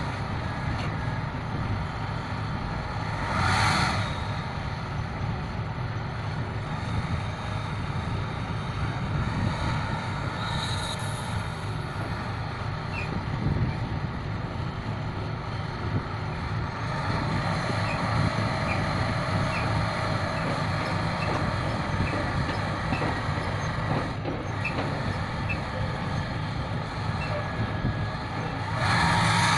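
Heavy diesel engine of a crawler piling rig running steadily, with two brief loud rushing, hiss-like bursts, one a few seconds in and one near the end.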